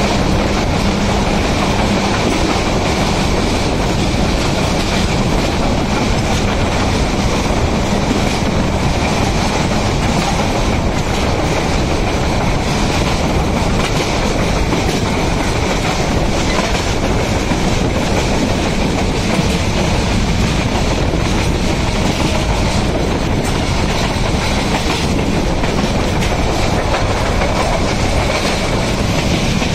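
Passenger train running along the track, heard from a coach window: a steady loud rumble of wheels on rail with clickety-clack over the rail joints.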